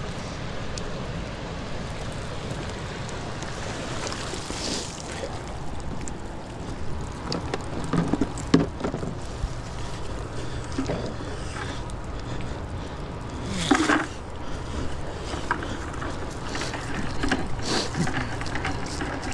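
Steady rush of churning river water below a dam spillway, with wind on the microphone. A few brief knocks and splashes break through, the loudest about fourteen seconds in.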